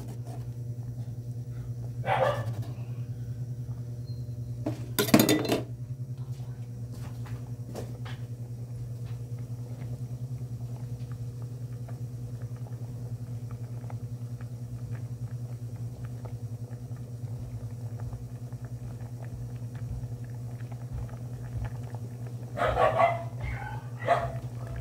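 A dog barking a few times: once about two seconds in, a louder bark about five seconds in, and several quick barks near the end, over a steady low hum.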